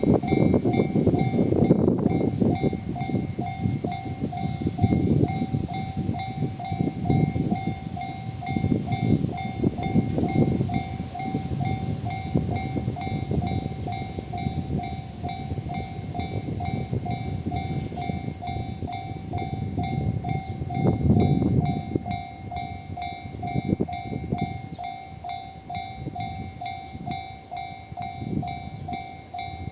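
A container freight train hauled by an EH500 electric locomotive passing over a level crossing, its wheels clacking over the rail joints as the wagons roll by. The crossing's electronic JR-standard alarm rings in a steady pulsing tone throughout.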